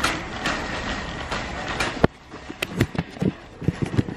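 Metal shopping cart rolling and rattling over a hard store floor, a steady clatter that stops abruptly about two seconds in. A few scattered knocks and clicks follow.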